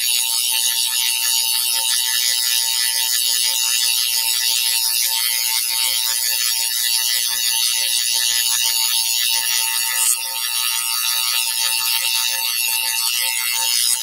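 Smart meter wireless transmissions picked up through an inside wall by an AR1 VLF receiver with a loop antenna, heard as a steady swishing hiss with faint steady tones beneath. A brief dip interrupts it about ten seconds in.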